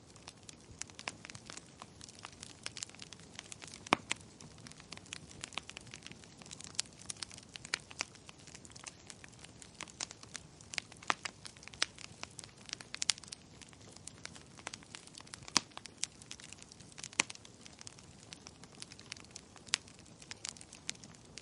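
Wood fire burning in a fireplace, crackling with irregular sharp pops and snaps of varying loudness over a soft steady hiss.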